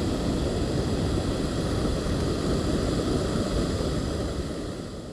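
Trangia camping stove burning under a kettle of water, a steady rushing roar that fades away near the end.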